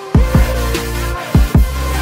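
Electronic background music: deep kick drums that drop in pitch, coming in pairs, over a sustained bass and gliding synth lines.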